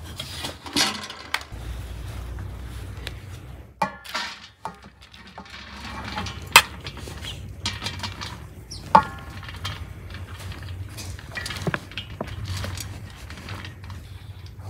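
Metal slotted spatula clinking and scraping against an aluminium bowl as cooked rice is pushed out into a pan. The sharp clinks come every second or two, the loudest about six and a half and nine seconds in.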